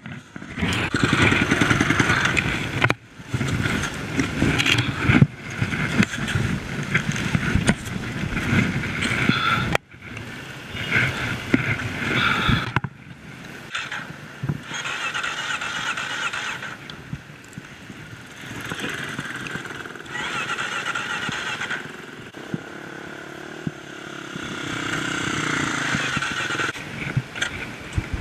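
Kawasaki dirt bike engine running and revving up and down as it rides a dirt trail. The sound breaks off abruptly and resumes a few times.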